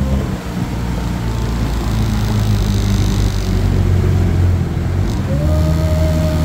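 Kawasaki Ultra 310LX-S jet ski's supercharged four-cylinder engine running at low speed. A steady low drone carries a thin whine that drops out near the start and comes back slightly higher about five seconds in.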